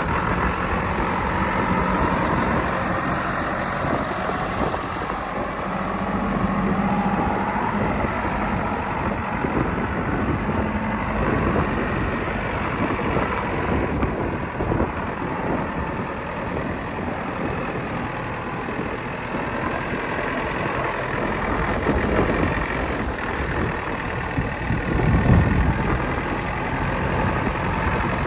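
Diesel engine of a JCB 3DX backhoe loader running steadily under load as it works, with a louder surge near the end.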